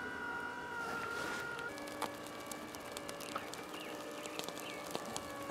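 Electric motor of a travel trailer's retractable power awning whining steadily as the awning rolls in, with a few light clicks from the arms; the whine steps up in pitch about two seconds in.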